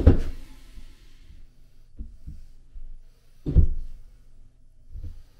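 A long level knocked and set against bare wooden wall studs: a loud knock at the start, two light taps about two seconds in, another loud knock about three and a half seconds in, and a light tap near the end. The level is being laid across the studs to check that they sit flat.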